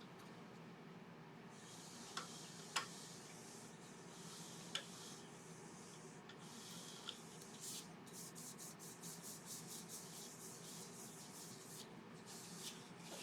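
Sanding sealer being rubbed onto a laburnum bottle-opener handle spinning on a wood lathe: soft hissing swishes with a few light clicks in the first half and quicker short strokes later. The low, steady hum of the lathe runs underneath.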